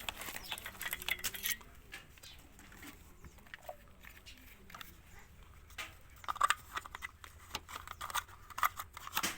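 Irregular light clicks and taps of objects being handled, busier in the second half.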